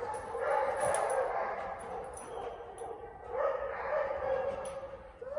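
A dog whining in long, wavering cries, with a short break around the middle.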